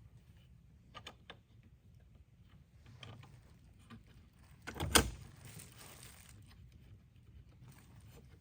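Hand tools clicking and knocking against the bike's parts during a repair. One loud, sharp clank comes about five seconds in.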